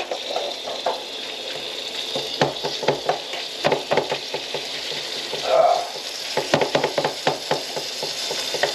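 Food sizzling in a skillet, with a utensil stirring and scraping against the pan in frequent irregular strokes. A brief pitched sound comes about five and a half seconds in.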